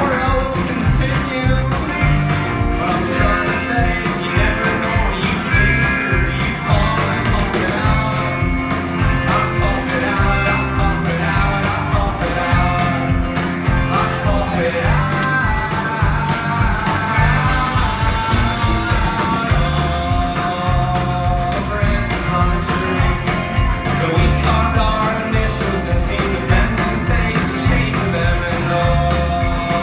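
A rock band playing live, with a steady drum beat, bass and a singer.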